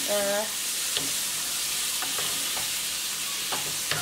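Shrimp, squid and vegetables sizzling in a nonstick frying pan over a gas flame, stirred with a wooden spatula that knocks against the pan half a dozen times.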